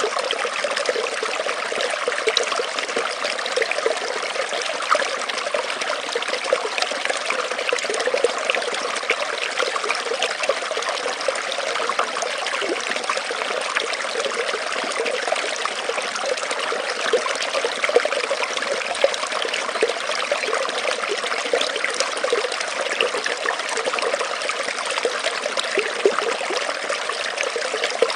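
Small forest stream trickling and bubbling, a steady rush of running water flecked with small gurgles.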